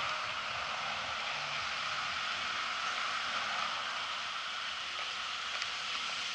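Steady, even hiss of outdoor street ambience beside a road, with no distinct events.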